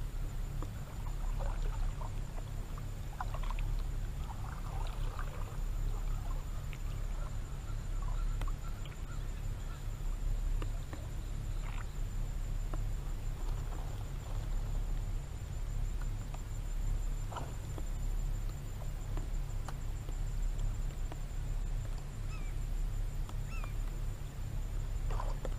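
Steady low hum with scattered short bird calls over it, and a faint steady high-pitched whine.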